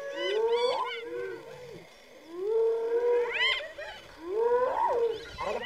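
Spotted hyenas calling during a clash with lions: a run of rising, wailing calls in three bouts with short pauses between them.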